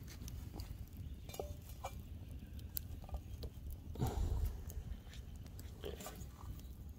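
Small stick campfire crackling with scattered faint pops. About four seconds in comes a louder rustle and knock as a frying pan is set down on the burning sticks.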